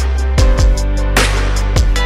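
Background music: an electronic track with a steady beat and deep bass hits that slide down in pitch.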